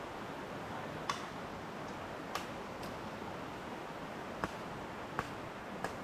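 Steady rushing of a river, with about six sharp clicks or snaps scattered through it.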